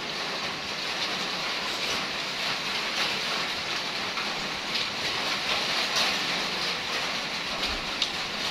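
Heavy rain falling steadily: a continuous rushing hiss, with a few faint ticks.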